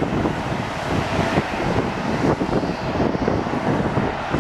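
Airbus A319 jet engines at takeoff power, a steady rumbling roar as the airliner climbs away, with gusts of wind noise on the microphone.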